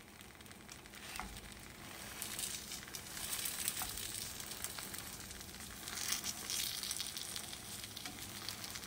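Egg omelette frying in oil in a pan under a chapati, sizzling with fine crackles, growing louder over the first few seconds.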